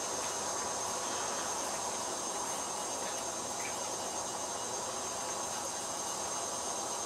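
Steady background hiss with a faint, constant high-pitched whine over it; no distinct events stand out.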